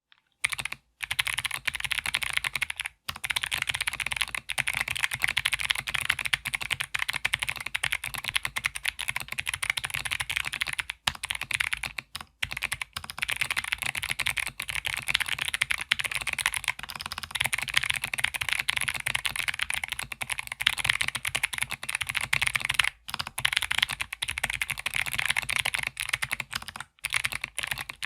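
Fast typing on a custom mechanical keyboard with Kailh Box Jade clicky switches in a Boyi GM67 65% board: a rapid, continuous run of sharp clicks. There are a few brief pauses, about a second in, near three seconds, around eleven and twelve seconds, and twice near the end.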